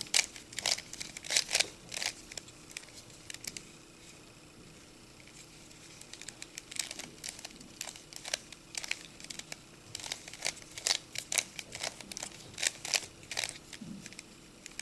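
Plastic Rubik's Cube turned quickly by hand: rapid clicking and clacking of its layers as they rotate. There is a lull of a few seconds early on before the turning starts again.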